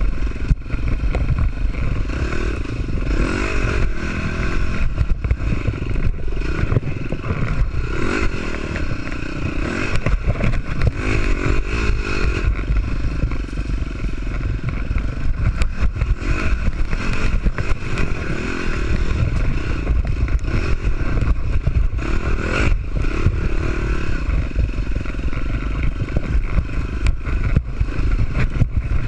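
Dirt bike engine revving up and down over and over while it is ridden hard over rough trail. Knocks and rattles come from the bike over the bumps.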